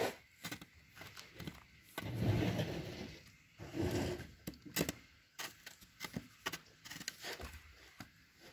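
Goats shuffling about close by in a straw-bedded wooden pen: scattered clicks and knocks, and two longer rustling noises about two seconds in and again near the middle.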